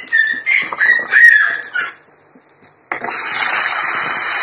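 A few high, wavering squeaks in the first two seconds, then a short lull, then a steady loud sizzle starting suddenly about three seconds in: chopped pumpkin frying in hot oil in a kadai.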